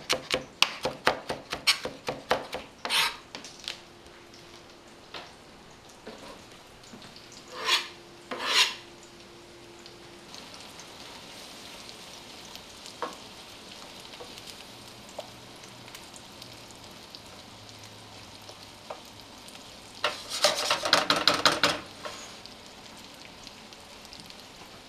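A chef's knife chopping parsley on a plastic cutting board in rapid strokes for the first few seconds, then shrimp, scallops and crab meat sizzling steadily in a frying pan. A wooden spoon scrapes and stirs against the pan in a quick run of strokes near the end.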